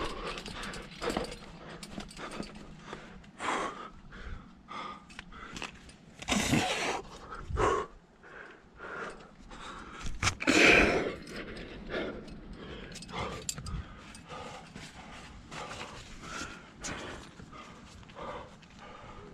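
Irregular scraping and shuffling of a climber's body and gear against the rock while moving up a chimney, mixed with heavy breathing. There are louder rustling bursts about six and ten seconds in.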